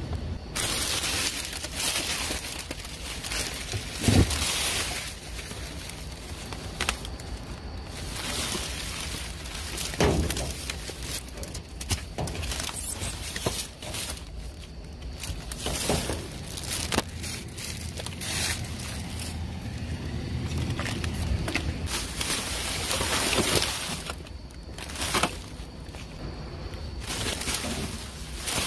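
Plastic bags and bubble-wrap packaging rustling and crinkling as hands rummage through trash, with a couple of sharp knocks, about 4 seconds in and again about 10 seconds in.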